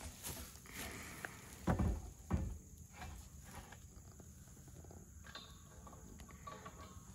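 Two heavy low thumps as a portable steel propane cylinder is set down on the ground, then faint light clicking and metal ticks as its gas line is hooked up.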